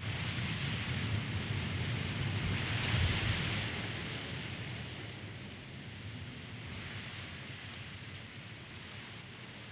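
Steady rain falling, starting suddenly and swelling about three seconds in, then slowly easing off.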